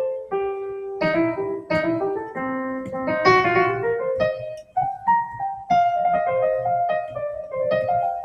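Digital keyboard playing its sampled Yamaha C7 grand piano voice: a melodic phrase of single notes in the middle register, a new note about every half second, each ringing on with the sustain.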